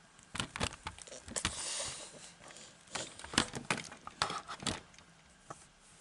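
Close handling noise on a desk: a string of sharp knocks and clicks, with a short crinkling rustle about one and a half seconds in.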